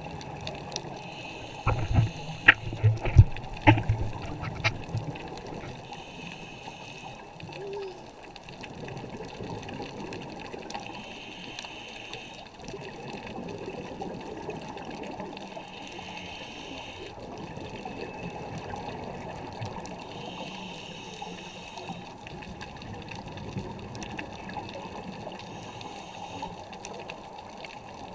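Scuba regulator breathing underwater: a loud burst of exhaled bubbles popping and rumbling about two seconds in, then breaths recurring every four to five seconds over a steady underwater hiss.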